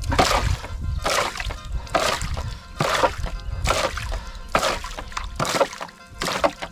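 Water being bailed out of a wooden dugout boat with a cut-open plastic jug: a scoop in the bilge, then a splash as each load is flung over the side, about one stroke a second.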